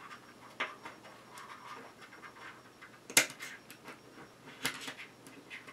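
Small screw and nut being handled and fitted by hand into carbon-fiber mount plates: scattered light clicks and scratches, the sharpest cluster about three seconds in.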